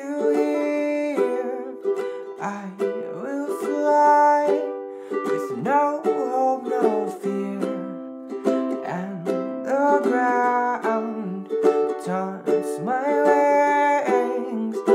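Ukulele strummed in a steady rhythm, with a voice singing long, bending notes over it.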